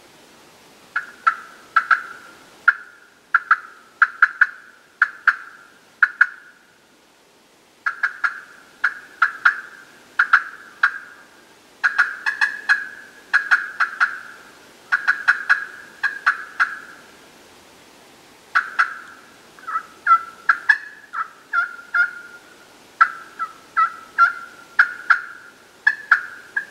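Turkey call worked close by, giving a long series of sharp, clipped turkey notes about two to three a second, in runs of several seconds with short pauses between.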